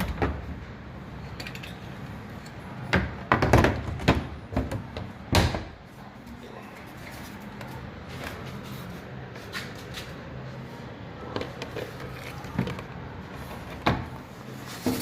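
LG washing machine running with a steady low hum, with several loud knocks and bangs about three to five seconds in and again near the end.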